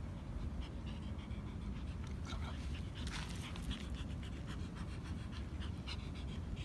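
A Scottish Fold cat sniffing and breathing in quick short puffs with its nose to the dirt, over a steady low rumble.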